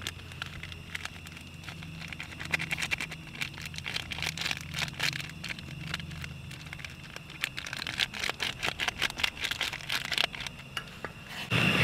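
Soup powder tipped from a paper sachet into a steel pot and stirred with a plastic spoon: rustling of the sachet and quick light clicks of the spoon against the pot, over the steady low sound of a portable gas stove burning beneath. A louder sound cuts in abruptly at the very end.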